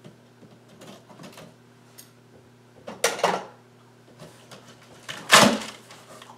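Cardboard box being handled and its flaps pushed open, with two loud rustling scrapes about three and five seconds in and light knocks between them. A low electrical hum runs underneath.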